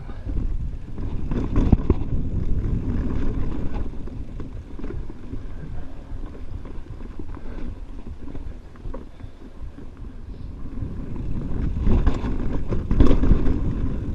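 Mountain bike riding fast down a dirt singletrack: wind buffets the camera microphone and the tyres rumble on the trail. The bike clatters over bumps about two seconds in and again near the end.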